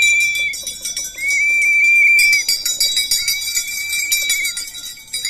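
Small bells jingling continuously, with a high, steady note held for about a second at a time and repeated every couple of seconds; faint voices underneath.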